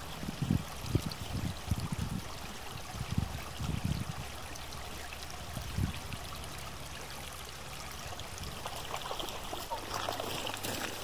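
A small stream running, a steady rush of water, with irregular low thumps through roughly the first half.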